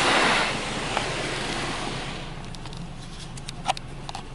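Water spray from a Belanger Saber SL1 in-bay automatic car wash hitting the car's roof and glass, heard from inside the car. The steady hiss dies away over the first two seconds, leaving scattered drips and ticks of water on the glass.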